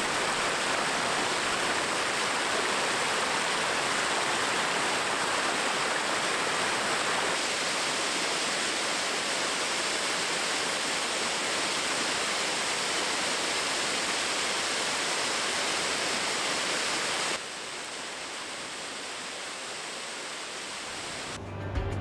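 Waterfall pouring: a steady rush of falling water. About seventeen seconds in, the rush drops suddenly to a quieter, softer level, and music comes in at the very end.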